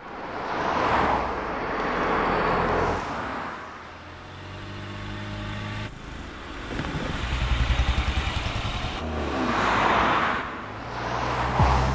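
Cars driving past on a road: a rush of engine and tyre noise swells and fades about a second in and again near the end, with a low engine hum between.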